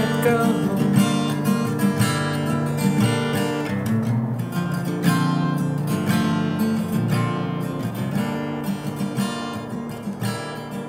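Song outro of strummed acoustic guitar, no vocals, slowly fading out.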